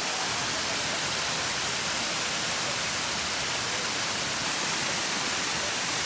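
Waterfall close by, falling onto rocks and into a pool: a steady, even rush of water with no let-up.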